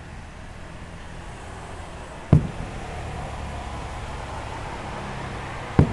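Two aerial fireworks shells bursting with sharp booms, about three and a half seconds apart, each trailing off in a short low rumble, over a steady background hiss.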